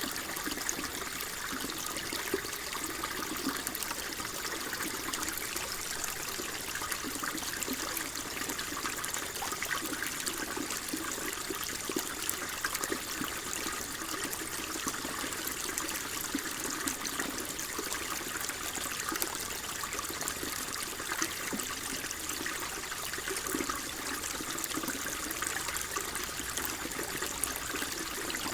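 Water flowing steadily in a continuous trickle, with a constant patter of many small splashes.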